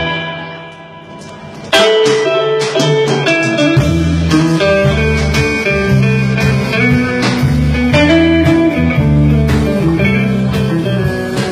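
Live blues band with a Stratocaster-style electric guitar in front. The band stops at the start, leaving one note ringing and fading. The electric guitar comes back in with a lead line just under two seconds in, and the low end of the band rejoins about four seconds in.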